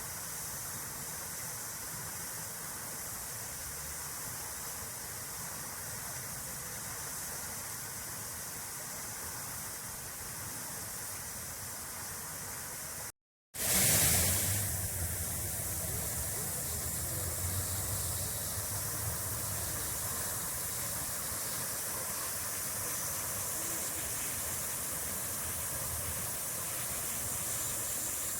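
Steady rushing and splashing of water from a park fountain. About thirteen seconds in it cuts out to silence for a moment, then resumes slightly louder.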